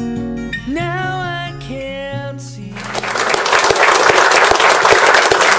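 Acoustic guitar music with a singing voice, gliding notes held over the chords, ends about three seconds in. Audience applause then takes over, louder than the music.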